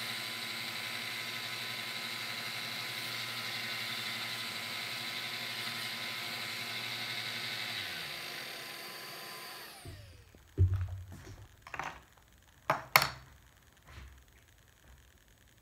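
Genesis bench belt-and-disc sander running with a steady whine while a wooden corbel is pressed against the sanding belt. About eight seconds in the motor is switched off and winds down in pitch over a couple of seconds. Then a few sharp knocks, the loudest a double knock near the end.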